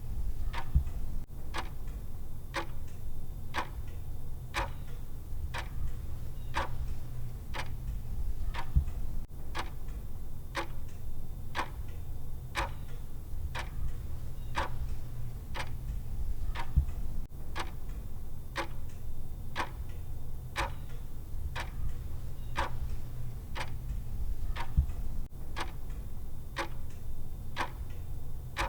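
Clock-style ticking of a countdown timer's tick sound: sharp, evenly spaced ticks, a little faster than one a second, over a steady low hum.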